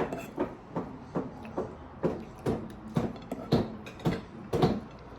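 Close-up eating noises: a steady run of short clicks, about two a second.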